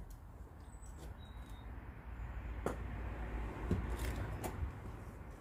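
Handling noises: a few light clicks and knocks over a low rumble that swells through the middle, with no drill running.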